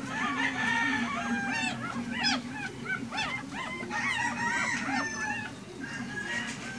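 A litter of young puppies squealing and whimpering: many short, high squeaks that rise and fall, overlapping one another all the way through.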